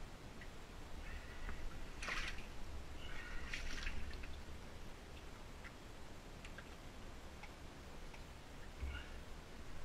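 Faint dripping and small splashes of water in a flooded mine passage, with scattered small clicks and two louder splashes about two and three and a half seconds in.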